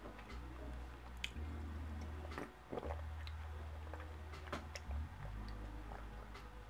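A man drinking from a can of iced tea: soft swallowing gulps and a few small wet mouth clicks.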